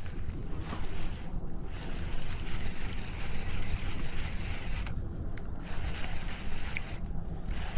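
Fishing reel being cranked in spells with short pauses between them, over wind rumbling on the microphone.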